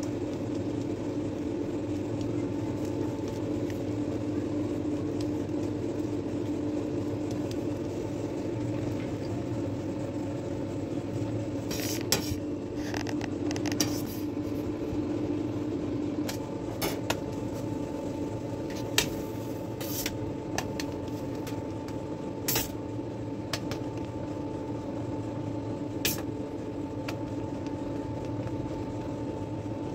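A steady mechanical hum, with a scattering of sharp metallic clinks and knocks from about halfway in, from a metal palette knife and cake boards being handled against a steel worktop and turntable.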